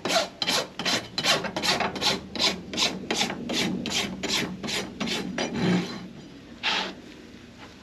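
Farrier's flat hoof rasp filing the wall of a shod horse hoof in quick, even scraping strokes, about three a second. The strokes stop a little after five seconds in, with one last stroke near seven seconds.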